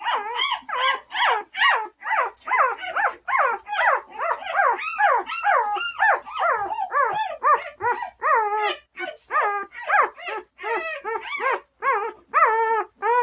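Newborn Bernese Mountain Dog puppies crying: a fast, unbroken run of short, high squealing cries that rise and fall in pitch, about two or three a second, turning into longer drawn-out whines near the end.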